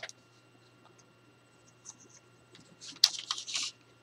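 A hand-held craft blade scratching along a ruler through paper to trim off the excess. It is mostly quiet at first, then a quick run of scratches and clicks comes about three seconds in.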